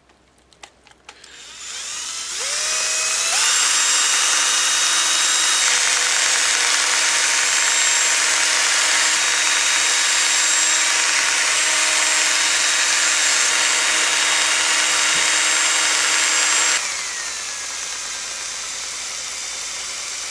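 Cordless drill spinning a mixing swab in a can of grease being thinned with Marvel Mystery Oil. After a few light clicks the motor winds up over a couple of seconds, runs at a steady high whine, eases to a lower, quieter speed about three-quarters of the way through, then winds down at the end.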